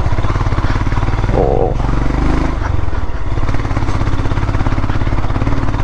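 Royal Enfield Himalayan's single-cylinder engine running steadily as the motorcycle rides along a dirt track.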